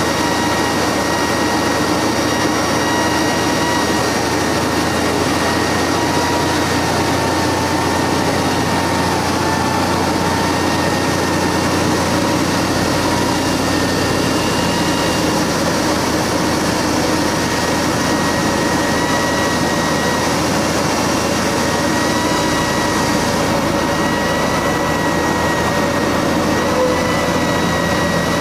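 Cessna 180 floatplane's six-cylinder piston engine and propeller running steadily, heard from inside the cabin as a constant drone with steady tones over rushing noise.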